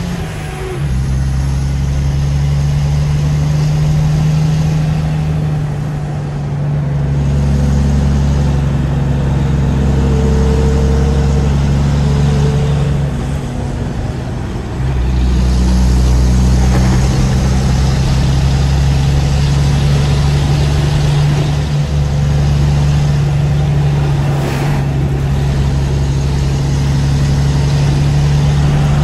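Diesel engine of an empty tractor-trailer pulling uphill, heard inside the cab: a steady low engine note that eases off and changes pitch briefly about six and fourteen seconds in, then pulls on again.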